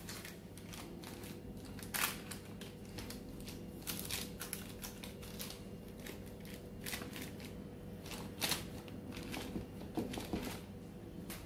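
Hand pressing and flattening soft dough balls on parchment paper: irregular crinkles and light pats as the paper shifts under the palm, over a faint steady low hum.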